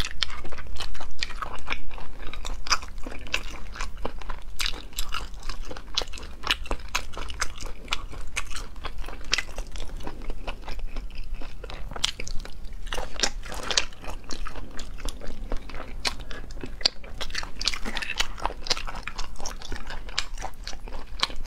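Close-miked eating sounds: sea snails in chili oil sucked from their shells, bitten and chewed, with many sharp, wet, irregular clicks and a few longer slurps.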